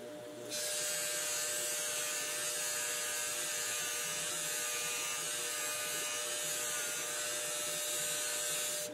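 Bench grinder motor running with a cotton buffing wheel; a thin threaded metal rod pressed against the spinning wheel for polishing gives a steady hiss that starts about half a second in and cuts off suddenly just before the end.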